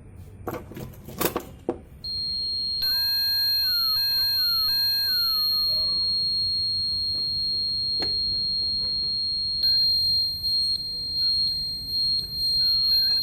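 Newly fitted indicator buzzer in a Honda Activa 5G scooter sounding a steady, high-pitched electronic tone, showing the replacement buzzer works. A few clicks come just before it starts, about two seconds in.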